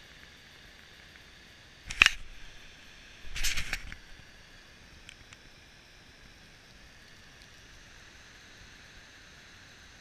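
Handling noise on an action camera as it is moved: one sharp knock about two seconds in, then a short scraping rattle about a second and a half later. Under it, a steady faint hiss of the waterfall.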